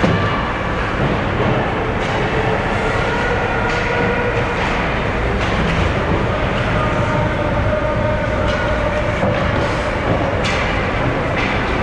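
Steady ice hockey arena noise during a game, with several sharp clacks spread through it.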